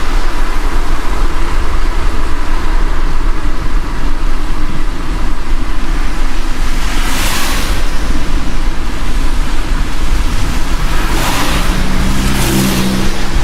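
Car driving in the rain: a steady low rumble of engine and road with a constant wet hiss. Three short swooshes rise and fall about seven, eleven and twelve and a half seconds in, and a brief pitched engine hum comes near the end.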